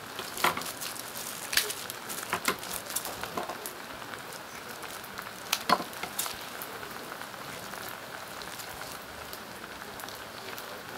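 Kitchen scissors snipping and a knife knocking on a wooden cutting board while braised pork trotter (jokbal) is cut up: sharp clicks and knocks, most of them in the first six seconds, the loudest a little before six seconds in, over a steady hiss.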